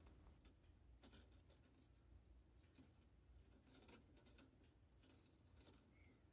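Near silence, with a few faint ticks and rustles of fine 28-gauge weaving wire being wrapped around the base wires by hand.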